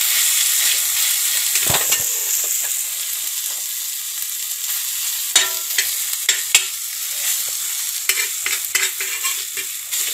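Shredded mutton frying in a little oil on a flat tawa griddle, sizzling steadily, while a metal spatula stirs it with scrapes and clinks against the pan at intervals, several of them near the end.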